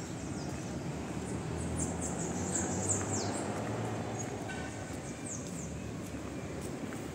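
Small birds chirping: a quick run of high, falling notes about two seconds in and a few more later, over a steady background hum.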